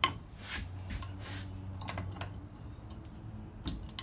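Light clicks and scrapes of metal tools against a Briggs & Stratton engine's flywheel and starter clutch as a flywheel holder and clutch wrench are fitted, a few separate clicks over a faint steady low hum.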